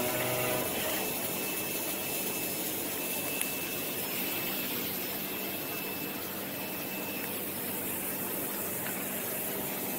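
DCZ70 CNC V-cutting machine running: a pitched motor whine stops about half a second in, leaving a steady hissing hum with a faint high tone.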